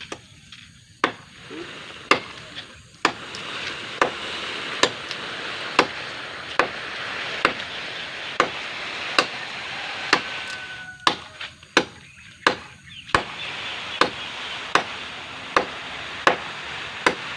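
Hard wood of a fallen tree being chopped with a hand blade: a sharp strike about once a second, over and over.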